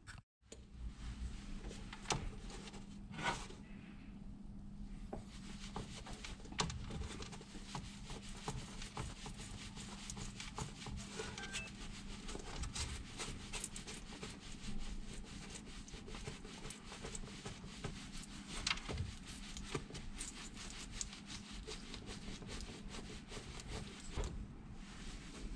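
Gloved hands handling a Nike CTR360 Maestri II soccer boot on a plywood board: scattered light taps, clicks and rubbing, over a steady low hum.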